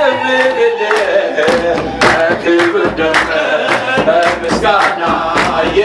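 A group singing an Ethiopian Orthodox hymn (mezmur), with hand clapping and a kebero drum keeping a steady beat about twice a second.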